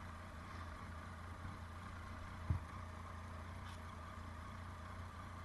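Motorcycle engine running slowly at low revs, a steady low hum, with one short thump about two and a half seconds in.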